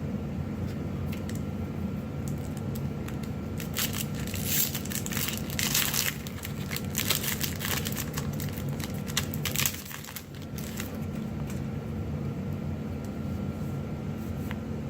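Foil trading-card booster-pack wrapper being torn open and crinkled, the crackling thickest in the middle stretch, over a steady low hum.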